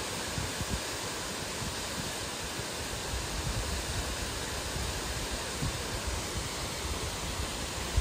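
Steady, even rushing of a tall waterfall pouring in several strands down a cliff face.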